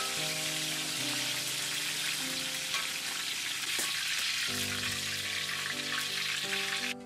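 Whole red bell peppers deep-frying in hot oil in a wok: a dense, steady sizzle that stops abruptly near the end, with soft background music underneath.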